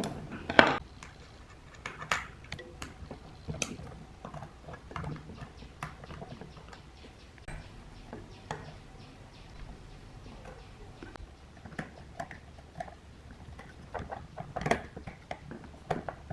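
Small metallic clicks and taps of brass clock-movement parts and steel tweezers being handled and fitted together, coming irregularly, with the loudest clicks about half a second in and near the end.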